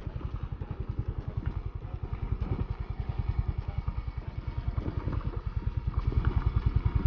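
A motorcycle engine running on the move, a fast low pulsing that grows louder toward the end.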